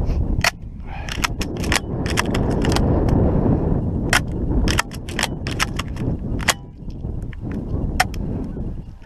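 Wind buffeting the microphone as a low rumble, easing off in the last couple of seconds, with a scatter of sharp clicks and knocks throughout.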